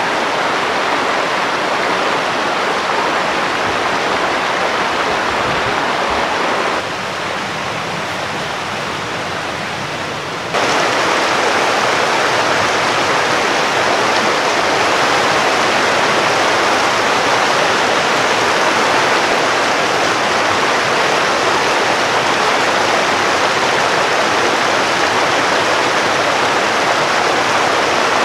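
Rushing water of a small rocky moorland stream tumbling over stones in little cascades, a steady close hiss. It drops a little in level for a few seconds about a quarter of the way in, then comes back.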